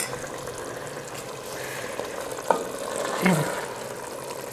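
Thick curry sizzling steadily in a clay handi on the stove. About halfway through, a wooden spoon gives two or three light knocks against the pot as it stirs.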